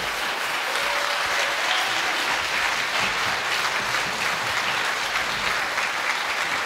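Audience applauding steadily at the end of an orchestral piece.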